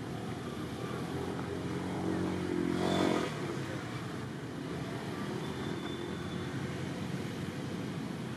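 A motor vehicle passing: its engine note swells, is loudest about three seconds in, drops slightly in pitch and fades away, over steady background noise.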